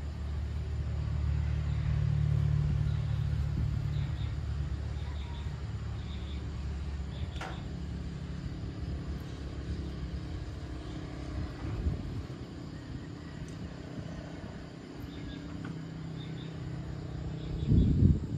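A motor vehicle's engine running as it passes, a low rumble with a steady hum, loudest about two seconds in and slowly fading. A brief low thump near the end.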